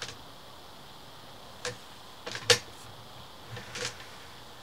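Sewer inspection camera's push cable being fed down the line, with a handful of sharp clicks and knocks over a faint steady hiss. The loudest knock comes about halfway through.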